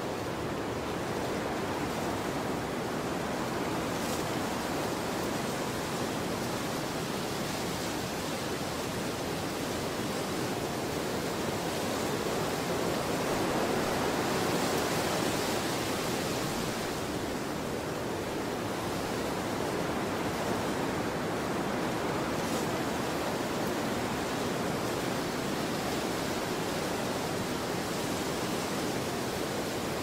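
Steady rushing wind, with no gusts or breaks, swelling slightly around the middle and easing again.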